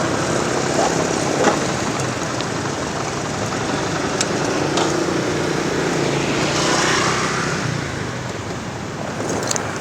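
Steady motor vehicle engine and road noise, swelling briefly about seven seconds in.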